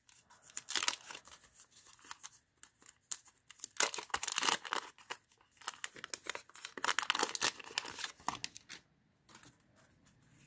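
Paper wax-pack wrapper of a trading-card pack tearing and crinkling in the hands, in several rustling bursts.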